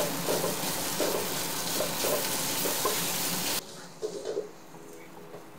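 Onions and tomato paste frying in olive oil in a pot, sizzling steadily while a spatula stirs them. The sizzle cuts off suddenly about three and a half seconds in, leaving a much quieter stretch.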